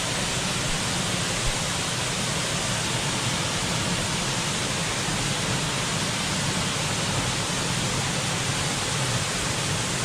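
A rain-swollen stream rushes over rock ledges in a waterfall cascade, a steady, even rush of water with no change throughout.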